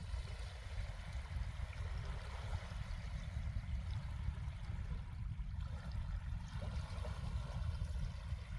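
Small waves washing on a sandy beach, with a continuous low rumble under the soft hiss of the water.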